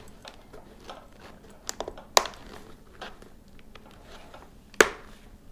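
Hands working a speaker and its wire into a motorcycle helmet's padded liner and ear pocket: soft rustling of the liner with a few sharp plastic clicks, the loudest near the end.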